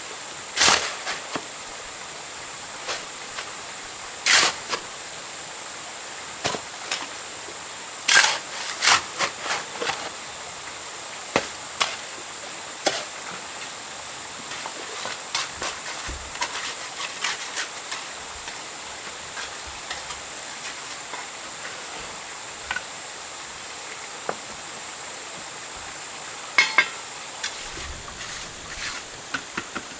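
Irregular sharp knocks, a few seconds apart and sometimes in quick pairs, over a steady hiss.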